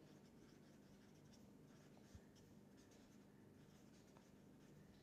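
Faint scratching and squeaking of a marker pen's felt tip on paper as words are written, in short irregular strokes over a low steady hum. There is a small thump about two seconds in.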